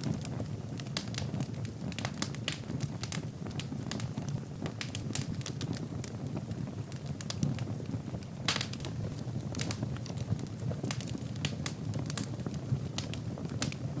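Wood fire burning: a steady low rumble of flames with frequent sharp crackles and pops from the burning logs, one louder pop about eight and a half seconds in.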